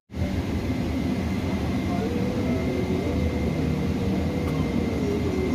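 Steady cabin noise of a parked airliner during boarding: the even rush of the air-conditioning with a low hum and a thin constant whine, and faint voices in the background. The sound drops out for an instant at the very start.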